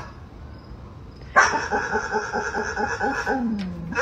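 A young dog making an odd stuttering vocalization: a run of rapid pulses, about five or six a second, lasting about two seconds and dropping in pitch at the end.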